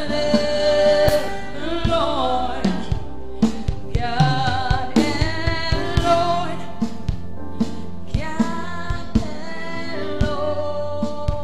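Live gospel worship music: long held and gliding sung notes over a band, with a steady bass and regular drum hits.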